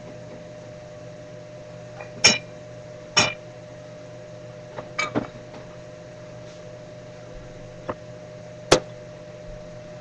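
A handful of sharp kitchen clinks of cookware, about six at irregular intervals, over a steady electrical hum.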